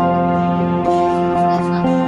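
Instrumental background music, held notes that shift in pitch every second or so.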